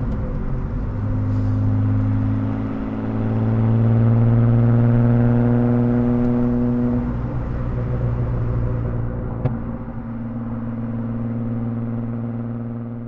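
BMW E36 328i's 2.8-litre straight-six with a loud aftermarket exhaust, heard from inside the cabin, running at a steady engine speed while cruising. The note swells about four seconds in and eases off about seven seconds in with its pitch unchanged, and there is one sharp crack about nine and a half seconds in.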